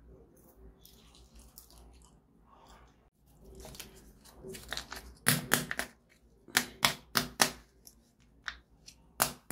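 Plastic biscuit wrapper being crinkled and torn open. Faint rustling comes first, then from about three seconds in a series of sharp crackles in clusters.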